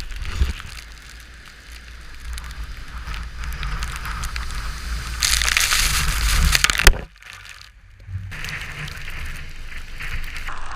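Storm wind buffeting the microphone over the rushing noise of rough lake water. A louder surge of wash swells about five seconds in, then the sound drops away suddenly near seven seconds and returns about a second later.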